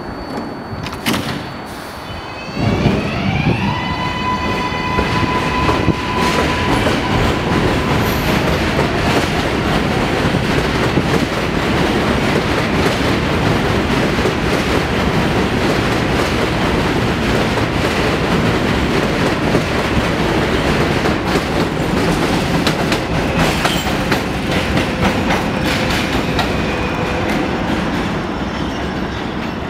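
R142A subway train pulling out of the station. A couple of seconds in, its motors start a whine that rises in steps and then holds, under a loud, steady rumble and clatter of wheels on rail as the cars run past.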